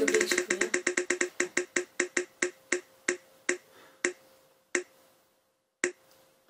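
Ticking of a spinning prize-wheel app as the wheel coasts: rapid identical clicks that slow steadily, the last two about a second apart, until the wheel stops.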